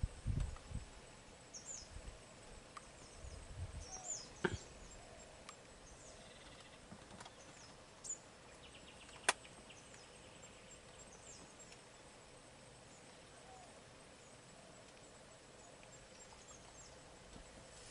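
Quiet forest-edge ambience with small birds chirping in short, high calls. A few dull thumps come in the first few seconds, and there are two sharp clicks, one about four and a half seconds in and one about nine seconds in.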